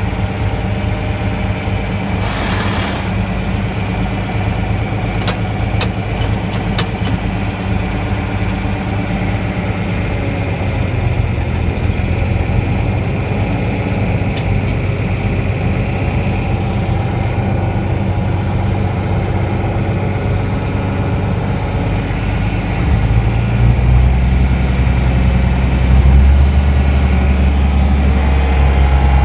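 A vehicle engine running steadily as it is driven in gear. There is a short hiss about two and a half seconds in and a few sharp clicks a few seconds later. The engine note turns deeper and louder near the end.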